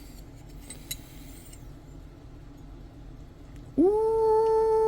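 Faint clinks and handling sounds, then about four seconds in a man's voice starts a long "ooh", held at one steady pitch.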